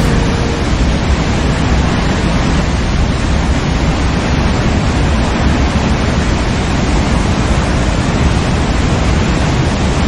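Waterfall: a steady rush of falling water, heaviest at the low end.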